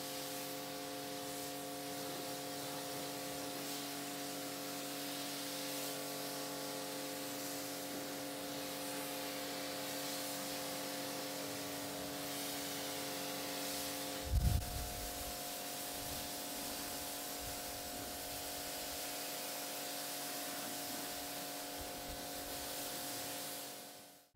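Pressure washer rinsing snow foam off a car's paintwork: a steady hiss of water spray over the even hum of the washer's pump motor. One brief low thump just past the middle.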